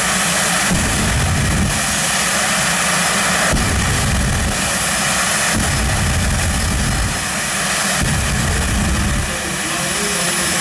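Jet engine of a jet-powered pickup truck running loudly at a standstill. The sound changes abruptly a few times.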